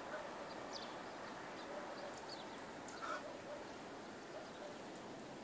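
Small birds chirping in short, scattered notes over a steady outdoor hiss, with one slightly louder, lower call about three seconds in.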